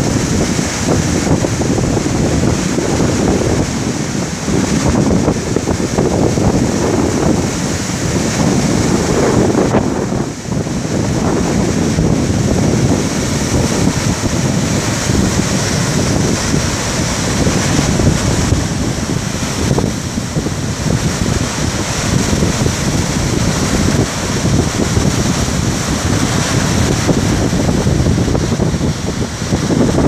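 Storm waves breaking and washing onto a lakeshore beach, a loud continuous surging rush, with strong wind buffeting the microphone.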